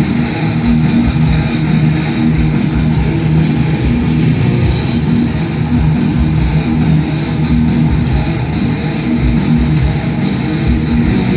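Heavy metal band playing live: distorted electric guitars over bass and pounding drums, with no singing.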